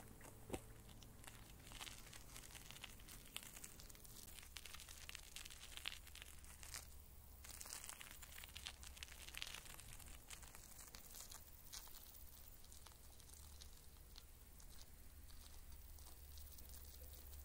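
Near silence: faint outdoor ambience with scattered light crackles and rustling.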